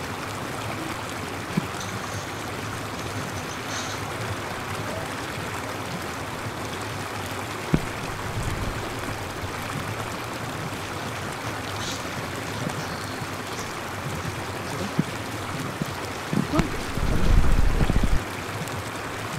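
Steady hiss of running water. Near the end comes a loud, low rumble lasting about a second and a half.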